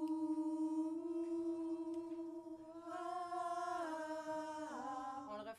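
Choir singing a long held note, moving to a new chord about three seconds in and sliding downward near the end, then stopping abruptly.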